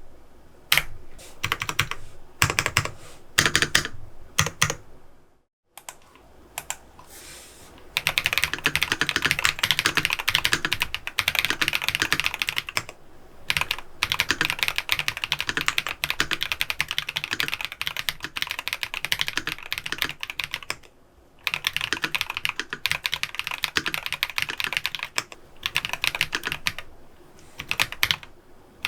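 Typing on an FL Esports MK750 mechanical keyboard with Geon Black linear switches and Aifei WOB keycaps. Scattered keystrokes at first, then after a brief pause a fast, continuous run of typing with one short break, thinning to a few strokes near the end.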